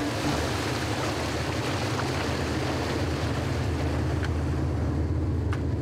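Fishing trawler's engine running steadily as a low hum while the boat tows its trawl, with a continuous hiss of wind and sea over the deck and a few faint knocks.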